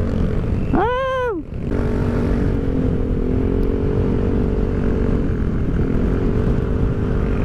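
Rusi Rapid 150 scooter's engine running through an aftermarket full-system exhaust with its silencer fitted, heard while riding at a steady speed. A short rising-then-falling note comes about a second in, then the exhaust holds an even, bassy tone, dipping slightly near the end.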